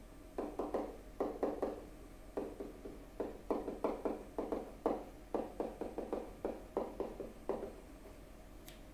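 Stylus tapping and sliding on a writing tablet during handwriting: a quick, irregular run of light taps that stops a little over a second before the end.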